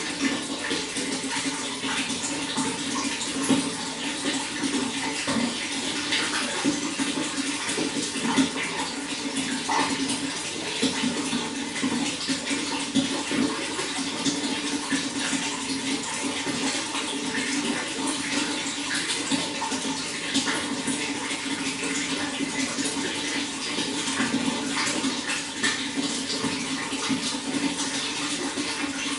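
Running water flowing steadily, with a constant dense patter of small splashes.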